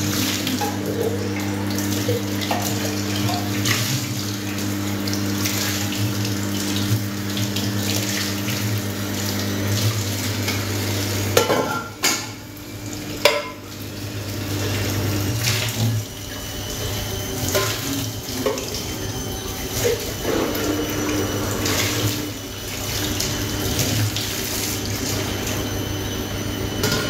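Tap water running into a kitchen sink while dishes are washed by hand, with scattered clinks of dishes and cutlery. A low steady hum underneath stops about halfway through.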